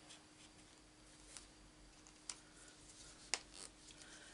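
Near silence: room tone with a faint steady hum and three faint clicks, about a second apart, from a marker and other craft supplies being handled on the desk.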